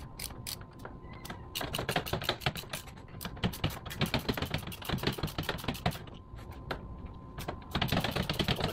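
Ratchet wrench clicking in rapid bursts as nuts are turned off the terminal posts of golf-cart lead-acid batteries.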